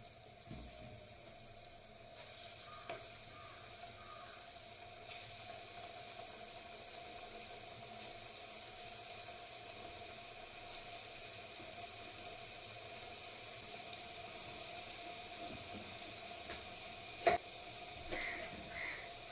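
Chana dal pakoras frying in hot oil, a steady sizzle, with a sharp knock about seventeen seconds in.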